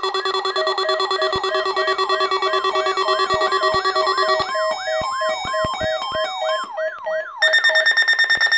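Emergency-alert warning tones layered together. A siren-like tone sweeps up and down about three times a second over a steady alert tone near 1 kHz and a pulsing lower beep. The mix changes about halfway through, and near the end a loud, pulsing steady high tone takes over.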